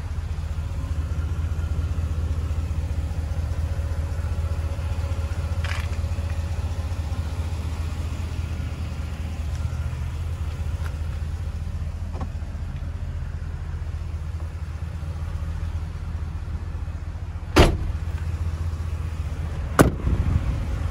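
A Ford F-250's 6.2-litre V8 idling steadily as a low hum. Near the end, two truck doors slam shut about two seconds apart.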